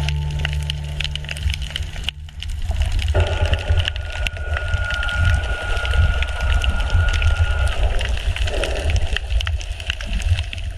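Underwater ambience: a dense crackle of sharp clicks over a low rumble, with a steady high whine for about four seconds in the middle.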